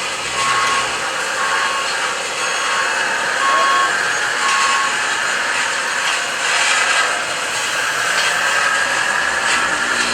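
Reversing beeper on a radio-controlled model construction vehicle, giving short beeps about once a second, mostly in the first half, over a steady mechanical whine from the working models that rises slightly in pitch later on.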